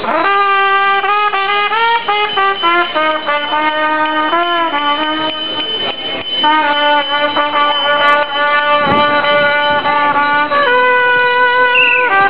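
A brass instrument playing a melody of held notes, with a short break about halfway and a step up in pitch near the end.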